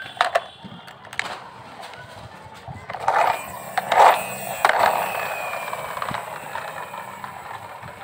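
Plastic toy fire truck's friction motor being revved by hand: the truck is pushed hard along concrete in three short grinding bursts about three to five seconds in. It is then released and rolls away on its plastic wheels with a whir that slowly falls in pitch and fades.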